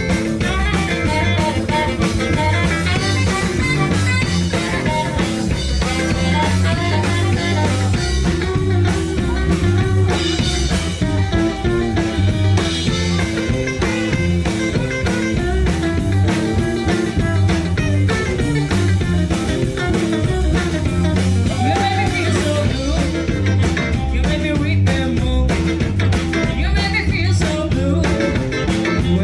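Live rock-and-roll band playing: electric guitars, bass, saxophone and drums at a steady, driving beat.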